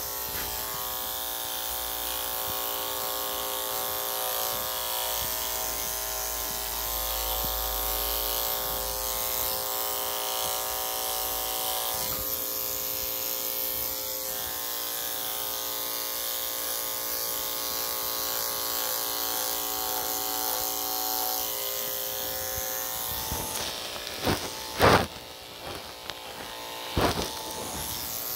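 Electric dog grooming clippers with a #10 blade running with a steady buzz while shaving a Shih Tzu's head and face. About 23 seconds in the buzz drops away, and two sharp knocks follow near the end.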